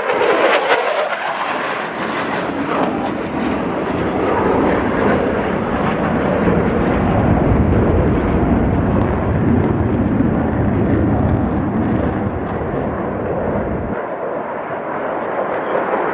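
Jet noise from US Navy Blue Angels F/A-18 Super Hornets flying past: a continuous roar whose deep rumble builds through the middle and thins near the end.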